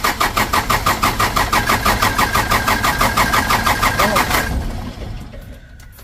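Starter motor cranking a Toyota Dyna's diesel engine in a quick, even rhythm without it firing, then stopping about four and a half seconds in. It is being cranked to push diesel up from the freshly rebuilt injection pump to the open injector lines while there is still air in the fuel system.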